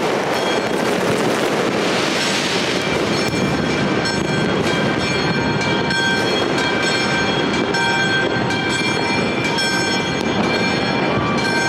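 A dense, continuous din of New Year fireworks and firecrackers popping and crackling across the city, with many sharp bangs and horns tooting throughout.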